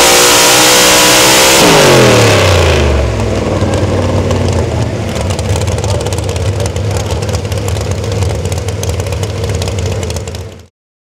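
Supercharged engine of a 4x4 pulling truck at high revs, then falling off steeply about two seconds in as the driver lifts off at the end of a full pull, settling to an idle. The sound cuts off suddenly near the end.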